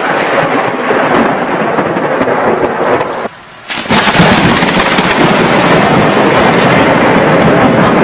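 Loud thunder rumbling over rain. The sound breaks off for about half a second a little over three seconds in, then a fresh clap of thunder starts abruptly and rumbles on.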